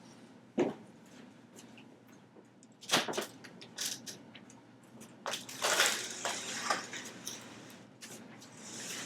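Scattered knocks and clicks with rustling: people shifting about and handling a padded chiropractic treatment table. There is a cluster of knocks about three seconds in and a longer rustle a little past the middle.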